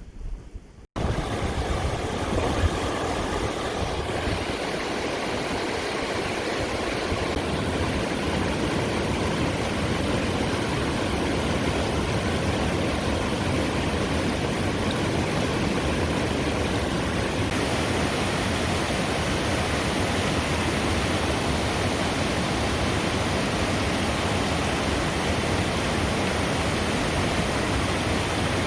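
Rushing mountain stream, a steady, even rush of water that cuts in abruptly about a second in.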